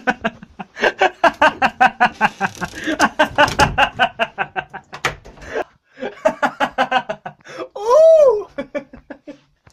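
A person laughing hard in quick repeated bursts for several seconds, with a second run of laughter after a short pause. Near the end comes a loud, drawn-out cry of "Oh!" that rises and falls in pitch.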